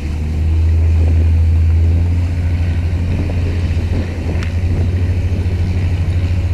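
Diesel boat engine running close by: a deep hum, loudest for the first two seconds, then easing into a fast, even throb.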